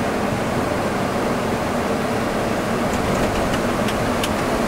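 Steady cockpit noise of an Embraer E195 airliner during the landing flare: a constant rush of airflow, air conditioning and engines, with a few faint ticks in the last second or so.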